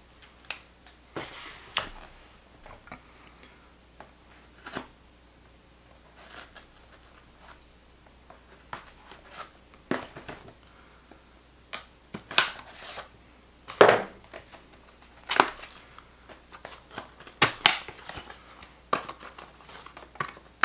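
A cardboard camera box being opened and handled: irregular tearing, scraping and knocking of the card and its flaps, in short sharp spells with quiet gaps between, the loudest cluster about two-thirds of the way through.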